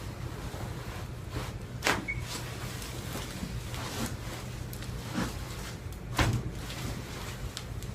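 A few scattered short clicks and knocks, the loudest about two seconds and about six seconds in, over a steady low hum.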